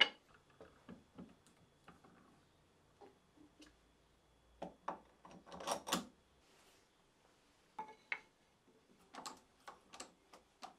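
Irregular light knocks and clatters of wood on wood as a shaped chair rail and a wooden chair maker's vise are handled on a workbench, busiest about halfway through and again near the end.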